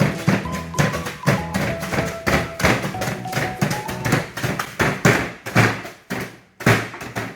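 Background music over repeated, irregular taps and thuds of a pestle crushing biscuits in a bowl.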